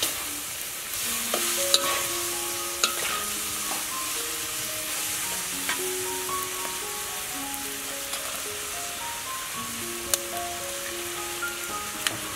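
Greens sizzling as they are stir-fried in a wok over a wood fire, with a few sharp clicks of a metal spatula against the wok.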